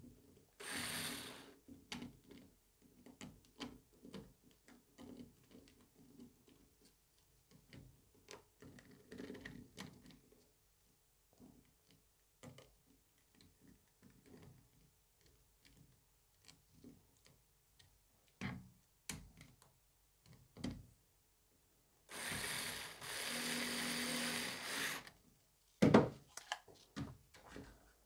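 A small cordless screwdriver driving screws into a plastic mount: a short run about a second in and a longer run of about three seconds near the end, with small clicks and the handling of parts between. A sharp knock follows the long run.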